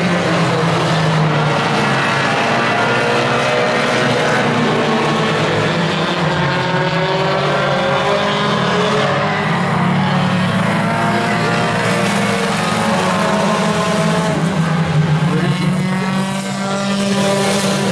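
A pack of small four-cylinder compact race cars racing at full throttle. Several engine notes overlap and rise and fall in pitch as the cars pass.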